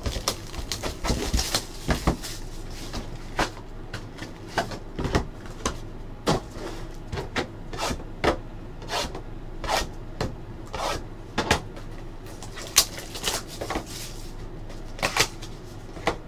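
Cardboard trading-card boxes and packs being opened and handled on a table: an irregular run of scrapes, rustles and light knocks.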